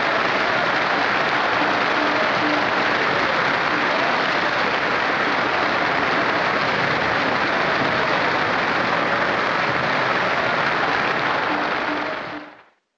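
Large audience applauding steadily in a dense wash of clapping, which fades out near the end.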